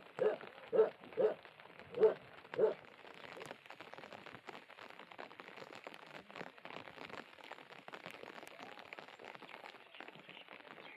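A dog barking about twice a second, five barks, stopping about three seconds in; then steady rain falling, with many small drop ticks.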